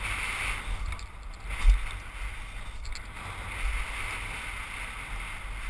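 Wind rushing over a helmet-mounted camera's microphone, with tyre rumble from a Trek Session 8 downhill mountain bike rolling fast over loose gravel and sand. A thud from the bike hitting a bump about a second and a half in, and a softer one later.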